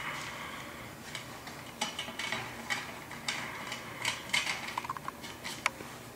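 Scattered light clicks and rattles of a plastic belt buckle and carrier being pushed along inside a curtain track, with a quick run of small clicks about four seconds in.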